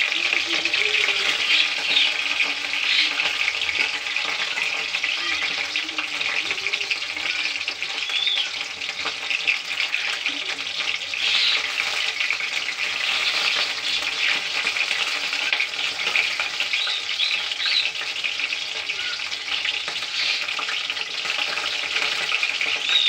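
Rice-flour-battered water lily (shapla) fritters deep-frying in hot oil in a karai, a steady crackling sizzle.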